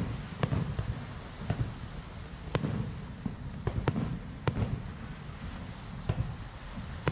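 Fireworks show heard from across the water: a dozen or so shell bursts go off at irregular intervals, each a sharp bang trailing into a low rumbling echo.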